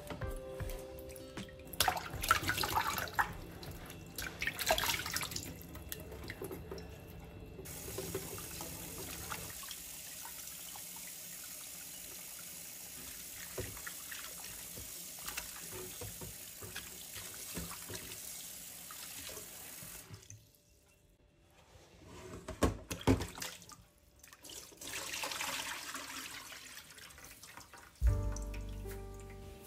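Tap water running and splashing into a glass bowl in a stainless-steel sink as raw fish are rinsed and rubbed by hand. The water stops for a moment about two-thirds of the way through, and soft music comes in near the end.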